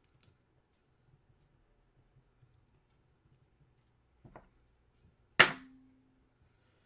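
Quiet room with a faint click near the start and a soft knock about four seconds in, then one sharp, loud knock a second later that leaves a short ringing tone.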